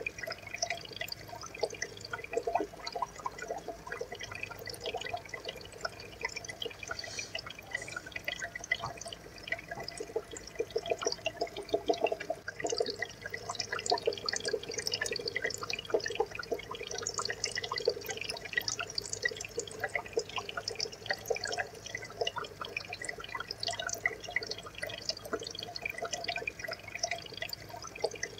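Water trickling and bubbling in an aquarium tank: a steady, dense run of small drips and plops.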